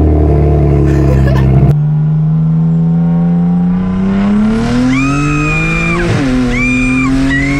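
Single-turbo BMW 335i's N54 straight-six heard from inside the cabin: a steady engine note, then after a cut the engine pulls hard, rising in pitch for a few seconds, drops at a gear shift about six seconds in and climbs again. Short high squeals sound over it during the pulls.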